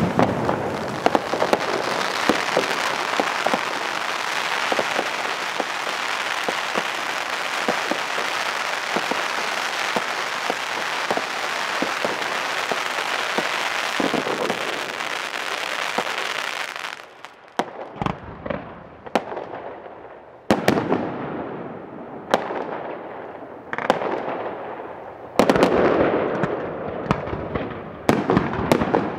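Fireworks: ground fountains spraying with a dense, continuous crackle and hiss. About 17 seconds in, this gives way to a run of separate sharp bangs from bursting fireworks, each trailing off.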